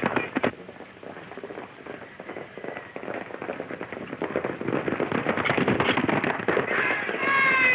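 Old film soundtrack of horses galloping with a rapid crackle of gunshots. A loud, high-pitched cry comes near the end.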